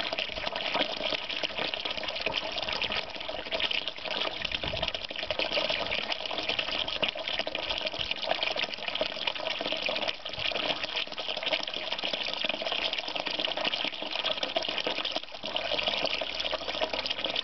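Water running steadily out of the tap at the bottom of a 20-litre plastic drum as the drum drains.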